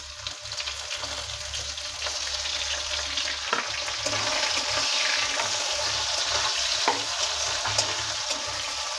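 Sliced onions sizzling in hot oil in a metal kadai while a metal spatula stirs them, with a few sharp scrapes and taps of the spatula on the pan. The sizzle grows a little louder over the first few seconds.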